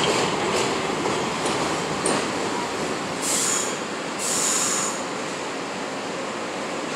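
A New York subway train of R62A cars rolls slowly past, with a steady rumble and a few wheel clicks over rail joints in the first couple of seconds. Two short high-pitched screeches follow, about three and four seconds in, before it settles back to the steady rumble.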